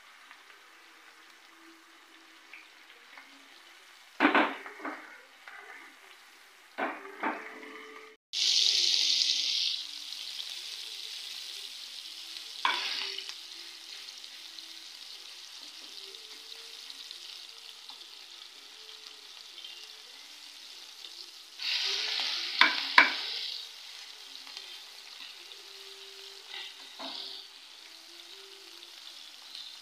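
Prawn vadas sizzling as they shallow-fry in oil in a metal pan, with a steel spatula scraping and clinking against the pan as they are pressed and turned. The sizzle jumps suddenly loud about eight seconds in and then settles, and the loudest clatter of spatula on pan comes a little past twenty seconds in.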